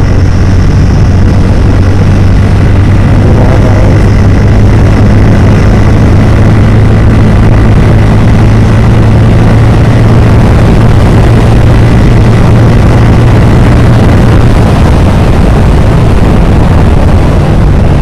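Motorcycle engine running steadily while riding at road speed, under a heavy rush of wind noise on the microphone.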